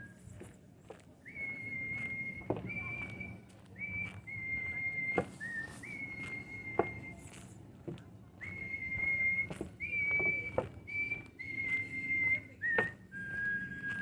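A long series of clear whistled notes, each held steady for about half a second to a second, with small steps in pitch between them. Scattered footstep-like clicks run underneath.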